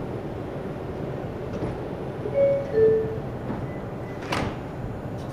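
Two-tone falling door chime of a New York City subway R142 car, warning that the doors are closing, over the steady hum of the standing train. The doors then slide shut, and a brief sharp noise follows a little after four seconds in.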